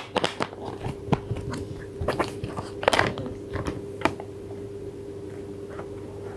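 Hard plastic Play-Doh toy pieces being handled and pressed together, giving irregular clicks and knocks, with a cluster of them about three seconds in.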